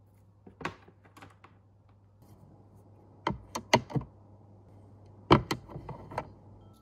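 Fenfa toy train's plastic track sections clacking against each other and the plastic storage box as they are stacked in. A few light clicks in the first second and a half, then two clusters of sharper knocks, about three and five seconds in.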